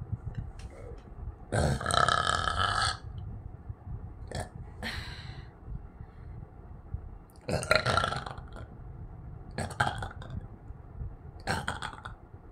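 A woman belching in a string of genuine burps, not forced ones. The longest and loudest comes about two seconds in and another near eight seconds, with shorter ones between and after.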